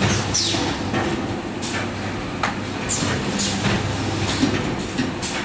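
Automatic paint roller finishing machine running. A steady mechanical hum and clatter is broken by sharp swishes that fall in pitch, recurring every second or two.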